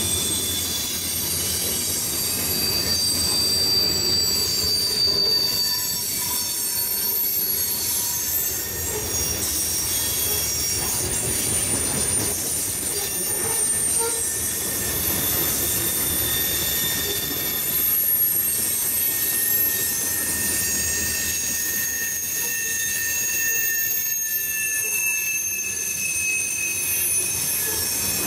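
Freight train of covered hopper cars rolling past, its wheels squealing in several high thin tones over a steady rumble of wheels on rail.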